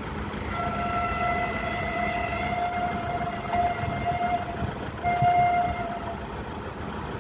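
An approaching locomotive's horn sounding one long steady blast of about four seconds, then a short blast about five seconds in, over a low rumble of the train.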